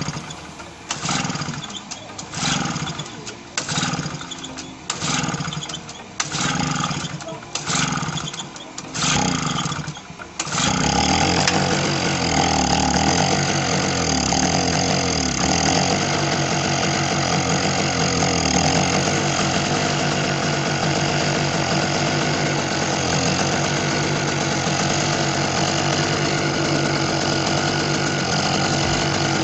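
Small Tiger petrol generator being pull-started with its recoil starter, primed with fuel poured into the carburetor through the choke opening. There are repeated short cranking bursts about one a second, then about ten seconds in the engine catches and runs steadily.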